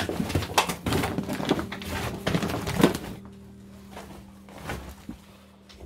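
Footsteps crunching and knocking on a rubble-strewn floor, with clattering of loose debris. The clatter is thickest in the first three seconds and thins to a few scattered knocks after.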